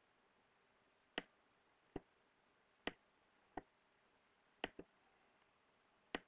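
Computer mouse button clicking about seven times at uneven intervals, some in quick pairs, as pen-tool anchor points are clicked and dragged into place. Near silence between the clicks.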